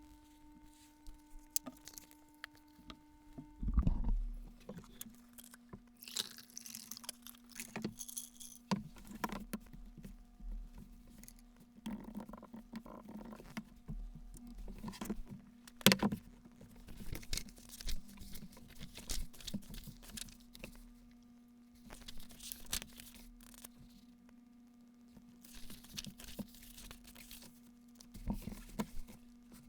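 Small objects being handled at a desk: scattered taps, clicks and rustling, with a sharp tap about sixteen seconds in, over a steady low hum.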